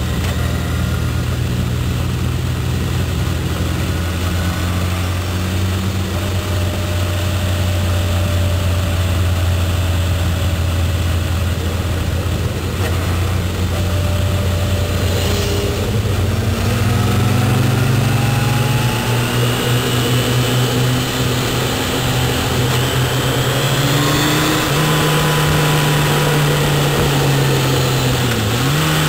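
Car engine and road noise heard inside the moving car's cabin, a steady low hum. About halfway through the engine note starts to climb as the car speeds up, and near the end it dips briefly and comes back up.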